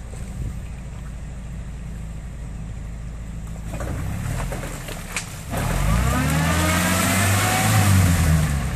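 1983 Toyota pickup's engine idling low, then revving hard from about halfway through, the revs climbing and falling for about three seconds before easing off near the end, as the rear wheels churn in deep mud.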